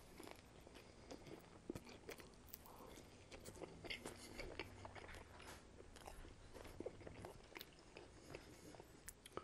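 Faint chewing of a mouthful of pepperoni-and-pineapple pizza, with small mouth clicks and crunches scattered irregularly through it.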